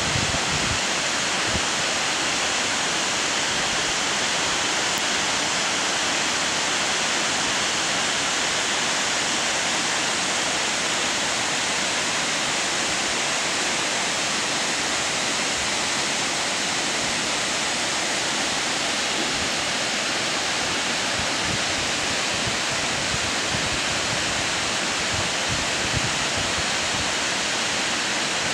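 The Seven Sisters waterfalls: many streams of water pouring down a steep rock face close by, making a steady, even rushing.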